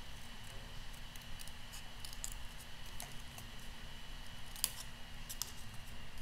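Scissors snipping through green cardstock to cut out leaf shapes by hand: a scatter of small, irregular snips, the sharpest one about four and a half seconds in.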